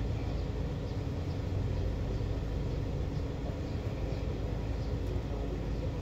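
Steady low rumble of vehicle noise, even throughout with a few faint steady tones in it.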